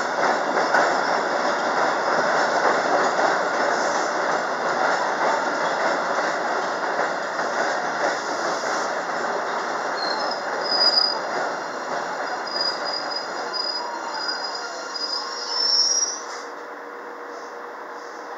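MBTA Blue Line subway train (Siemens 0700-series cars) rolling into an underground station, its wheels rumbling on the rails. From about ten seconds in, high brake and wheel squeals rise as it slows. It stops at about sixteen seconds, leaving a quieter steady hum.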